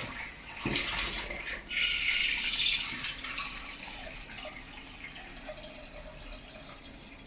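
Cold water pouring into a pot of raw eggs, loudest a couple of seconds in and then easing to a softer trickle.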